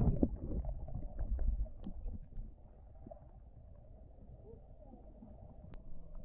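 A camera plunging into a shallow creek with a splash, then the muffled underwater sound of the water: a low rumble with faint knocks and clicks that grows quieter after about two seconds.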